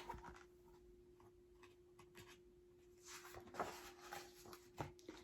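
Near silence with a faint steady hum. About three seconds in, a soft paper rustle with a few light ticks: a page of a picture book being turned.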